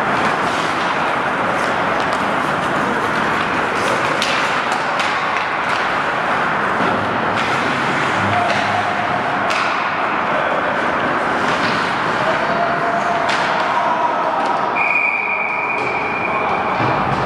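Ice hockey play in an indoor rink: a steady wash of skate and arena noise with scattered clicks and knocks of sticks and puck. Near the end a steady high whistle tone sounds for about two seconds as play stops at the net.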